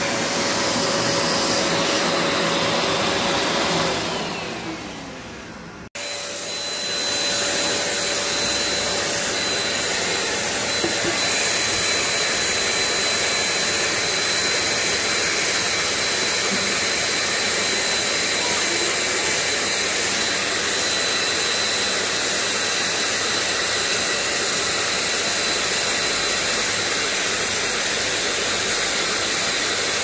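Eureka Forbes 800-watt handheld vacuum cleaner running with a steady motor whine. About four seconds in, it winds down with a falling pitch. After an abrupt break it runs steadily again while its nozzle is worked over a pleated air-purifier filter.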